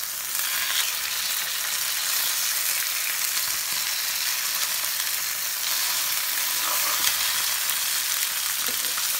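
Two marinated pearl spot fish sizzling steadily in shallow oil in a nonstick frying pan, half-fried. A few light clicks come from the spoon and spatula in the pan.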